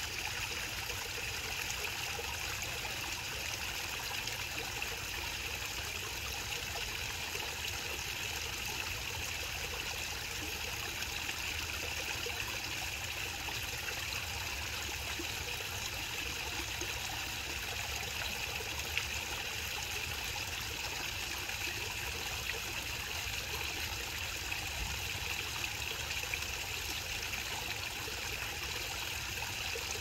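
Small garden waterfall, a thin stream of water falling over a stone ledge into a pond, splashing and trickling steadily.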